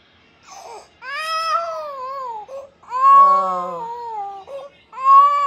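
A toddler crying in a tantrum: after a moment of quiet, three long high-pitched cries with short breaths between them.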